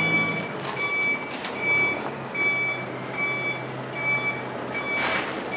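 Truck reversing alarm beeping steadily, a little under one beep a second, as the truck backs up slowly, with a low diesel engine running underneath. A short burst of noise about five seconds in.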